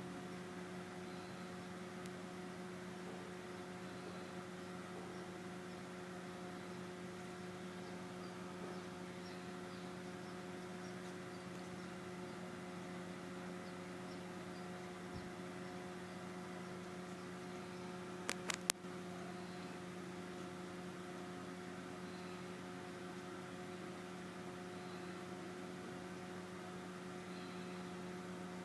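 Steady electrical hum with several evenly spaced tones above it. Three quick clicks in a row come about 18 seconds in.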